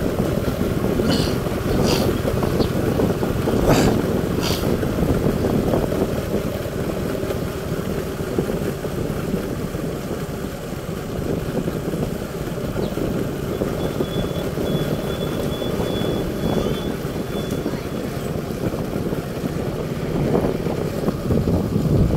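Steady engine rumble and travel noise from a moving vehicle, with wind buffeting the microphone and a few sharp clicks in the first five seconds.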